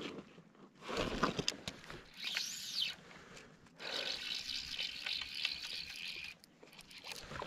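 Fly reel drag whirring as a hooked trout pulls line off it: a short run about two seconds in that rises and falls in pitch, then a longer steady buzz of about two and a half seconds that cuts off suddenly.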